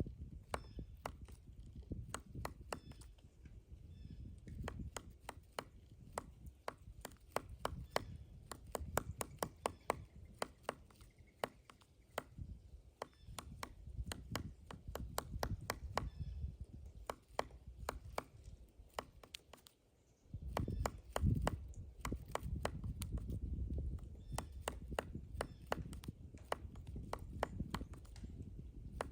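Pileated woodpecker chiselling into a pine trunk: sharp, irregular knocks of bill on wood, sometimes in quick runs of several a second, over a low rumble.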